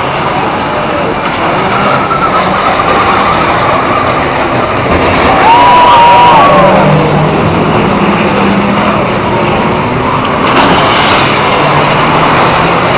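Engines of old banger-racing stock cars, some towing caravans, running and revving as they race round the track. A continuous loud din that peaks about six seconds in.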